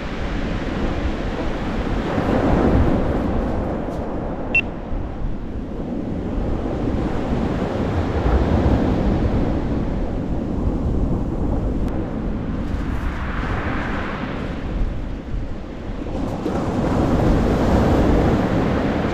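Surf on a shingle beach, swelling and easing in slow waves, with wind rumbling on the microphone. A single brief click a little over four seconds in.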